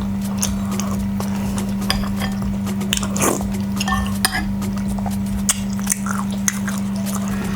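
Close-up eating sounds of chapati and beef stew: chewing, with small clicks and clinks of cutlery or dishes and a longer wet smack about three seconds in. A steady low hum sits under it all.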